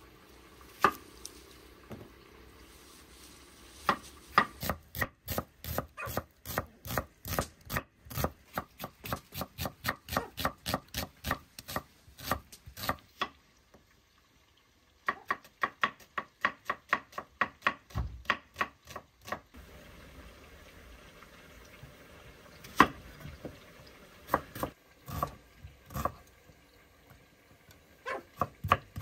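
Knife chopping food in runs of quick, even strokes, about three a second. There is a short pause about halfway through, and slower, scattered cuts near the end.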